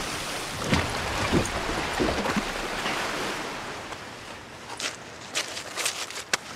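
Sea water splashing and surf washing as a person wades out of the shallows, loudest in the first few seconds, then quieter with a few sharp knocks near the end.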